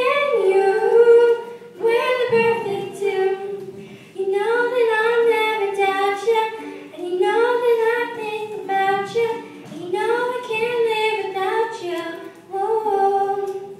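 A young girl singing solo into a microphone, unaccompanied, in phrases of held notes with short breaks between them.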